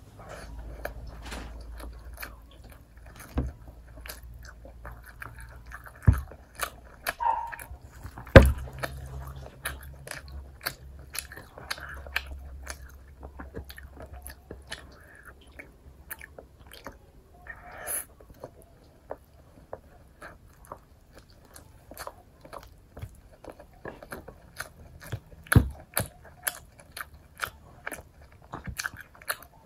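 Close-miked mouth sounds of chewing chicken and rice, eaten by hand: steady wet chewing clicks, with a handful of sharper bites, the loudest about eight seconds in.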